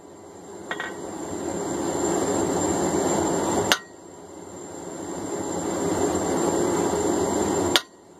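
Two sharp, ringing hammer blows on a punch, about four seconds apart, marking the eye on a hot steel hammer blank. Between them is the steady noise of the running forge, which dips after each blow and builds back up.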